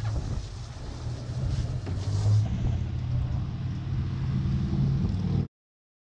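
Boat's outboard engines running at idle, a steady low hum under wind and water noise, cutting off suddenly near the end.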